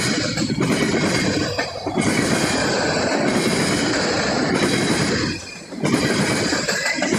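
Freight train cars rolling past, wheels clattering over the rail joints with some wheel squeal; the noise dips briefly about three-quarters of the way through.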